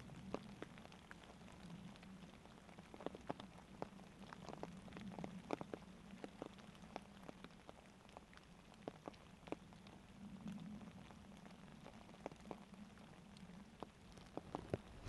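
Light rain: scattered drops ticking irregularly on leaves and water, over a faint, steady low rush of the flowing stream.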